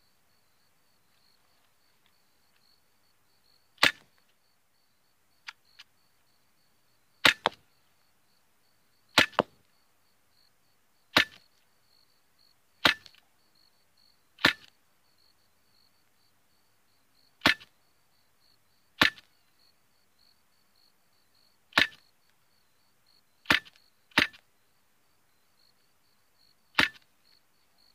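SIG Sauer P320 .177-calibre air pistol, a blowback model powered by a 12-gram CO2 cartridge, firing twelve single shots, each a sharp crack. The shots come at an uneven pace, mostly one every one and a half to three seconds, with two in quick succession near the end.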